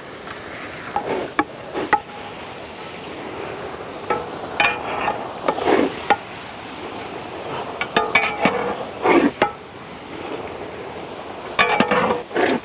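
Chicken pieces being stirred in an uruli: a ladle clinks and knocks against the pot, with a few longer scraping strokes about a third of the way in, around two-thirds in and near the end, over a steady hiss.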